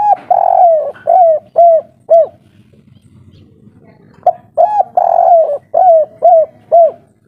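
Spotted dove cooing two song phrases, the second starting about four seconds in. Each phrase is a few quick notes, then a longer drawn-out coo, then three short coos: the 'kuk 3' song type.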